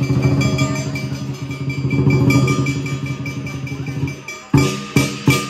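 Lion dance percussion: a fast, dense drum roll with cymbals. It breaks off about four and a half seconds in and picks up again as loud, separate beats with cymbal crashes, about three a second.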